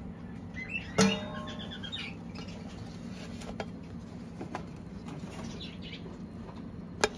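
Light kitchen handling: a sharp click about a second in and another near the end, with a few faint ticks between and brief chirping around the first click, over a steady low hum.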